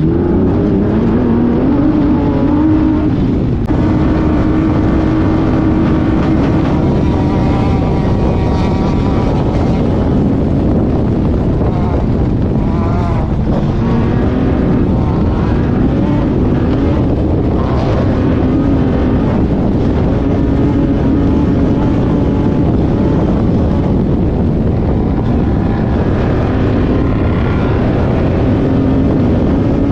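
Engine of a Sportsman Unlimited Class 1500 off-road race car running hard, heard from inside the car, its pitch rising and falling with the throttle.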